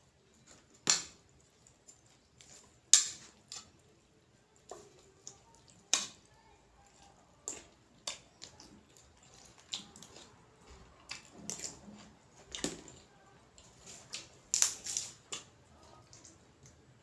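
Close-up eating sounds: a person chewing and crunching food, fresh lettuce and greens among it, with irregular sharp crunches every second or two, the loudest about three seconds in and near the end.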